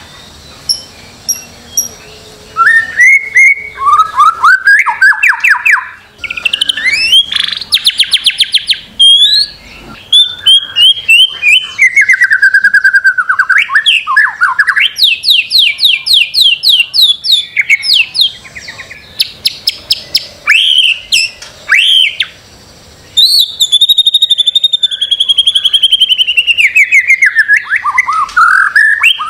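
White-rumped shama singing a long, varied song: rapid trills of repeated notes, sliding whistles and rising and falling phrases, broken by a few short pauses.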